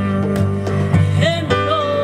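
Live jazz-leaning band music: a low double bass line under pitched melody lines, with one melody note held near the end.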